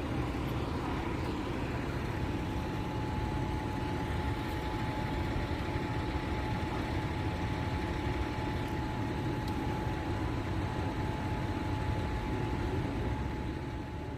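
Steady low rumble of vehicle engine noise on a city street, with a thin steady whine that starts about two seconds in and stops near the end.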